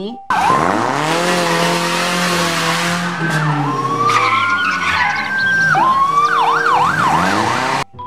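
Police patrol car driving fast with its engine revving. Its siren sweeps up into a long held wail, then changes to a fast rising-and-falling yelp near the end. The sound cuts off suddenly just before the end.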